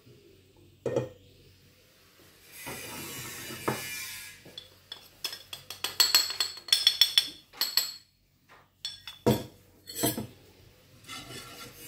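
Flour is added to a saucepan of milk, followed by a quick run of clinks and taps of utensils against the pan, with a couple of knocks near the end.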